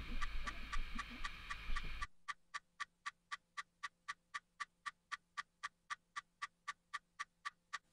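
Steady watch ticking, about four sharp ticks a second. Faint room noise lies under the ticks for the first two seconds, then cuts out, leaving only the ticks.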